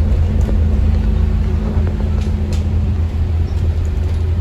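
Alexander Dennis Enviro 400 MMC double-decker bus running with a steady, loud low engine drone. A humming tone over it holds for about three seconds, then fades.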